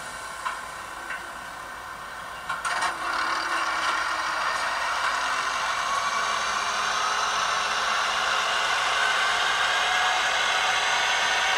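PIKO E94 model electric locomotive moving off: a few light clicks, a short clatter about two and a half seconds in, then a steady whirring run whose pitch rises slowly as the model gathers speed.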